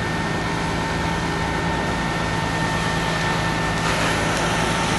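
An engine running steadily, a constant drone with a high whine over it and a little more hiss near the end.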